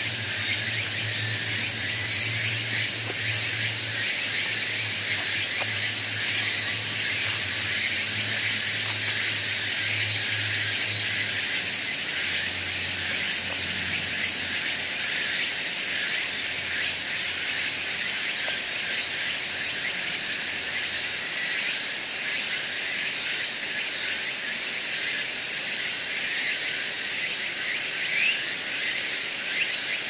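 Steady, high-pitched chorus of insects, a continuous buzzing drone with busier pulsing trills beneath it. A faint low hum fades out about halfway through.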